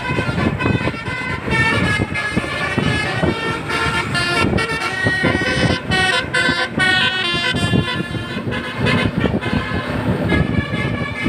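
Multi-tone 'telolet basuri' bus horn playing a tune of stepped notes, with vehicle noise underneath.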